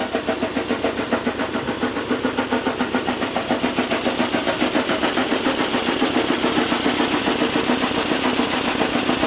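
Small steam beam engine running steadily on its test stand, with an even pulsing of about three or four beats a second; the pulsing comes from the feed-water pump bypass at the back end, which is open and returning water.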